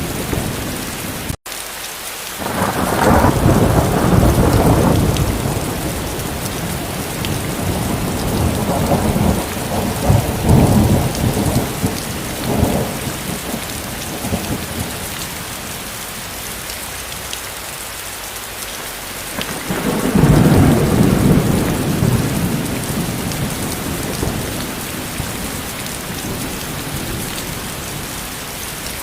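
Steady rain with thunder rumbling in three long rolls: a few seconds in, around ten seconds in, and about twenty seconds in. Just over a second in, the sound cuts out for an instant.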